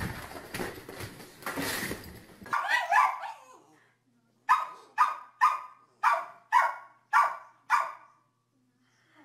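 A small terrier barks seven times in a quick run of short, sharp barks, about two a second. Before the barks there are a couple of seconds of noisy rustling and scrabbling.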